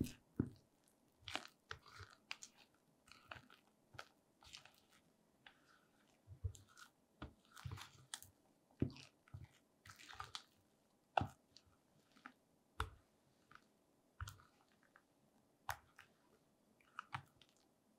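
Silicone spatula folding a thick cream cheese filling in a glass bowl: faint, irregular scrapes and soft taps of the spatula against the glass, with sticky sounds of the batter.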